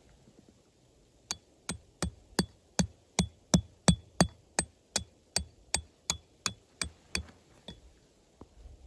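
Hammer blows, about eighteen evenly spaced strikes at nearly three a second, each with a short metallic ring. They grow louder toward the middle and then fade out.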